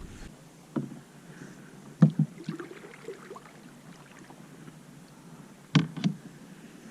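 A kayak being paddled, with sharp knocks of the paddle against the hull: one a little under a second in, two about two seconds in, and two more near the end.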